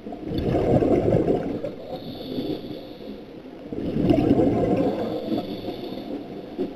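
Scuba diver breathing through a regulator underwater: two long rushes of gurgling exhaled bubbles, each followed by the thin hiss of an inhaled breath.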